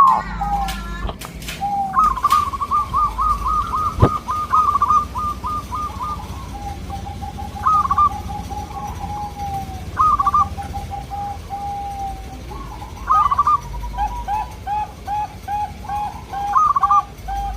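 Zebra doves (perkutut) cooing in quick series of short, bubbling notes, with phrases at a higher and a lower pitch. Near the end two birds call over each other. There is a single sharp click about four seconds in.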